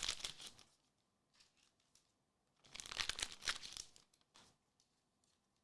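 Plastic card packaging crinkling as it is handled, in two bursts: a short one at the start and a longer one about three seconds in.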